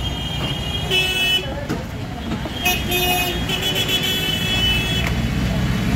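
Busy street traffic: a steady low rumble of passing vehicles, with vehicle horns tooting about a second in and again around three seconds in.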